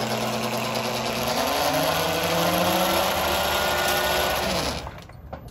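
QS138 electric hub-style mid-drive motor spinning the raised rear wheel of an electric motorcycle through its chain under throttle. It gives a loud whine that holds steady, then climbs in pitch. Near the end it falls in pitch and dies away quickly as regenerative braking slows the wheel.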